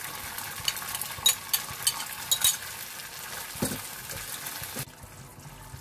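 Tomato-chilli sauce sizzling in a non-stick frying pan, just thinned with a little water, as a spoon and a wooden spatula scrape and tap against the bowl and pan while it is stirred. The sizzle drops away abruptly near the end.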